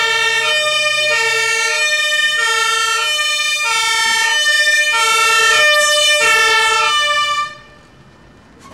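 German two-tone fire engine siren (Martinshorn) on a MAN fire engine, loud, switching between two pitches about every half second. It cuts off suddenly about seven and a half seconds in, as the truck drives past.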